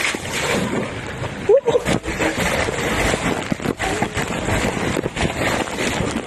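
Water rushing down an open water slide, with wind on the microphone, as a rider slides down feet first. A few knocks, and a short high-pitched sound about a second and a half in.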